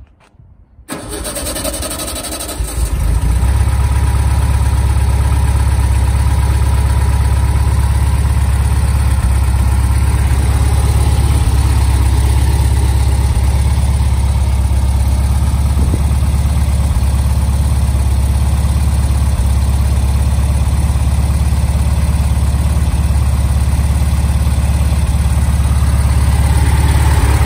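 A 1956 Karmann Ghia's 1200cc air-cooled VW flat-four with a Speedwell supercharger, cranked by its 6-volt starter from about a second in, catching after a couple of seconds, then settling into a steady idle through its stainless steel exhaust.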